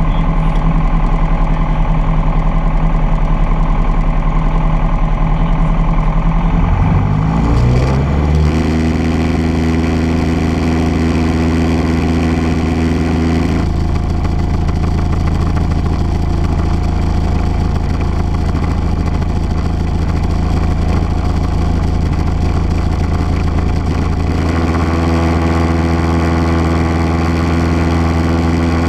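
Light aircraft's piston engine and propeller running, heard from inside the cabin. The engine speed rises in a short glide about seven seconds in, then holds steady.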